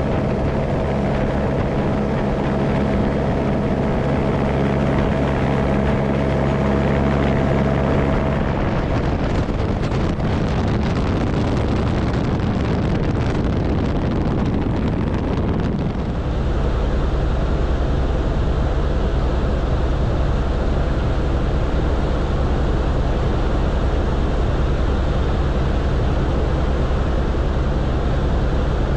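Airbus AS350 B3 Esquilo helicopter heard from inside the cabin: a steady, loud drone of turbine and main rotor. Its sound changes abruptly about eight seconds in and again about sixteen seconds in.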